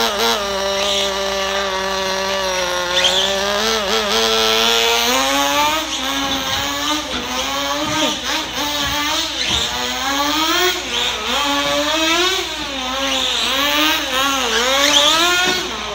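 Sportwerks Chaos 1/16 nitro buggy's small glow-fuel engine running at a steady idle for about the first four seconds, then revving up and down again and again as the buggy is driven.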